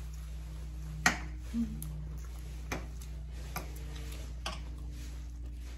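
Four sharp clicks of a metal fork against a plate, the first one the loudest and the rest about a second apart, over a steady low hum.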